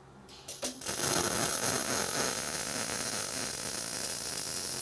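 MIG welding arc on solid (hard) wire, laying a small tack weld on a steel pipe joint. The arc stutters a few times as it strikes, then burns steadily for about four seconds.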